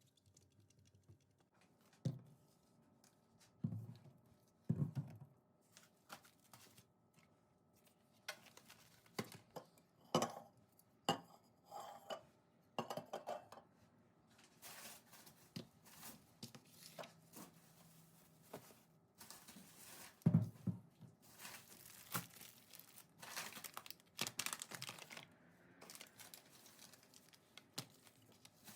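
Household items being handled during kitchen cleaning: objects knocked and set down several times, with rustling, crinkling and scraping in between.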